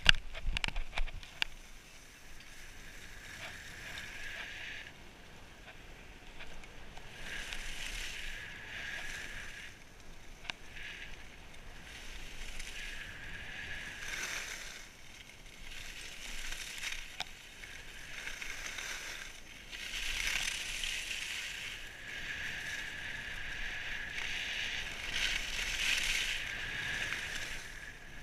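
Skis hissing and scraping over groomed, packed snow on a downhill run, rising and falling in waves as the skier turns, with a few sharp clicks in the first second or so.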